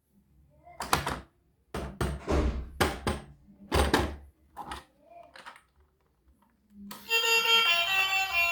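Hard objects being handled, a run of sharp knocks and clacks with short ringing tails, about ten over four seconds and fading off near the middle. Music with a steady, bright melody starts suddenly about seven seconds in.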